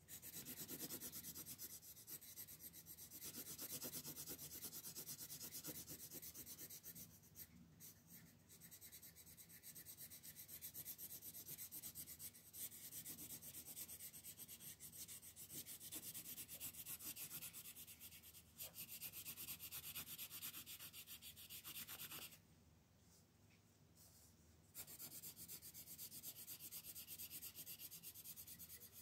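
Blue coloured pencil shading on colouring-book paper: a faint, steady scratchy rubbing of quick back-and-forth strokes. It pauses for a couple of seconds about three quarters of the way through, then resumes.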